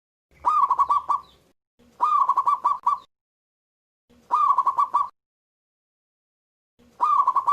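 Zebra dove (perkutut) cooing in four short song phrases of about a second each. Each phrase opens with a rising note and breaks into a quick run of repeated coos, with short silences between phrases.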